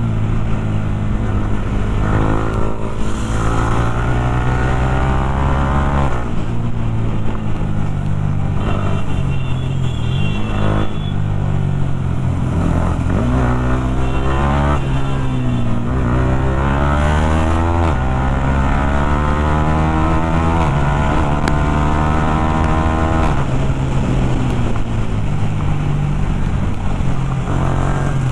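Sport motorcycle with a loud exhaust, ridden hard: the engine note climbs again and again through the gears and drops back between shifts and roll-offs.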